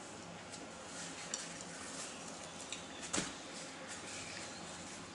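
A few light clicks and clinks against a dinner plate while a piece of flour tortilla is handled and torn, the sharpest click just after three seconds in.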